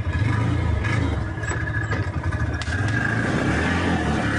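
Engine of an open off-road vehicle running as it drives, a steady low pulsing, with clattering and scraping from the vehicle.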